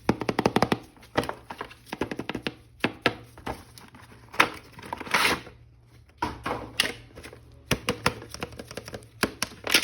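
Clicks, taps and short rustles of hands opening and handling a toy action figure's plastic packaging, with a quick run of clicks in the first second and brief rustling bursts near the middle and end.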